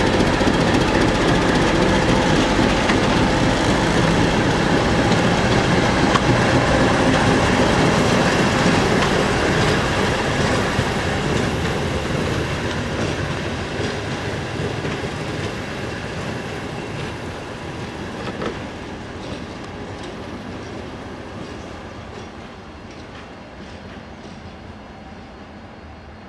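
A pair of Class 73 electro-diesel locomotives working on their diesel engines, passing close and pulling away, with their wheels clattering over the points. Loud for the first ten seconds or so, then fading steadily as they move off.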